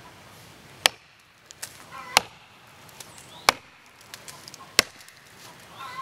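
Axe chopping into the trunk of a standing gum tree: four sharp strikes, about one every 1.3 seconds.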